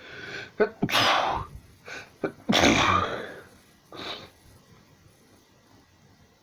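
A person sneezing twice in quick succession, about a second and a half apart, each loud sneeze led in by shorter sounds, then a weaker short burst about four seconds in.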